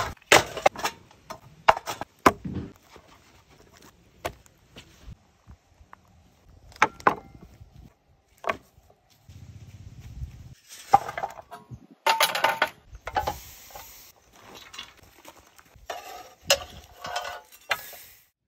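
Handling noise from grilling over charcoal: irregular clinks, knocks and clatter of metal grilling gear, a charcoal chimney starter, a grill grate and tongs, with a few stretches of rustling noise between them.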